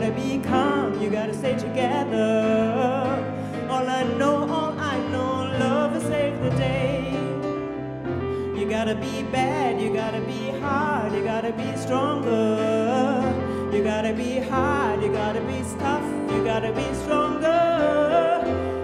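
Live band music: a soul-pop song played on an archtop electric guitar and keyboard, with a woman's singing voice wavering over it.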